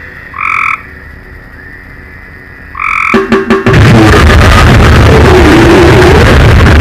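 Frog-themed noise music: two short, croak-like calls over a quiet hiss, a few stuttering hits about three seconds in, then a sudden loud wall of dense distorted noise.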